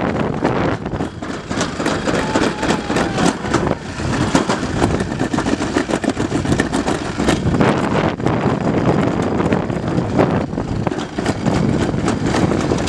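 Toboggan sled running fast down a steel chute: a continuous rumbling rattle from the sled in the metal track, with many small knocks.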